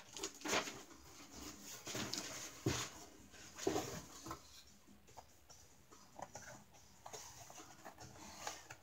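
Cardboard boxes being handled: scattered knocks, scrapes and rustles as the opened shipping carton and the rice cooker's product box are touched and moved.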